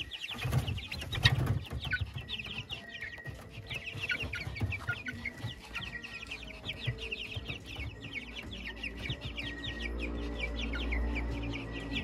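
A flock of month-old Rhode Island Red chicks peeping continuously: many short, falling chirps overlapping, with a few knocks of movement in the first two seconds. A low hum joins about ten seconds in.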